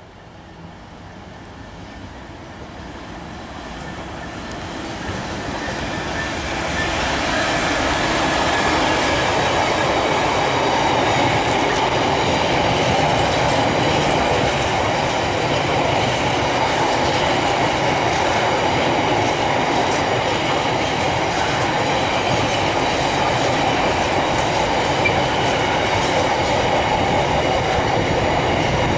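Freightliner freight train of empty flat container wagons running past on the rails. It grows louder over the first eight seconds or so, then holds steady as the wagons roll by.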